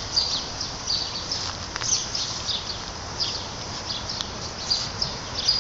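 Short high-pitched chirps from wildlife, repeating at about three a second.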